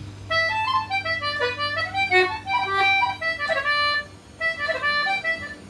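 Anglo concertina playing a quick, ornamented phrase of reel melody with grace notes on the high notes, breaking off briefly about four seconds in before a few more notes.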